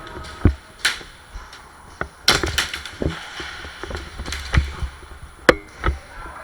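Irregular sharp cracks and knocks of an airsoft skirmish, about eight to ten of them, with a quick cluster a little over two seconds in: shots from gas airsoft guns and BBs striking hard surfaces.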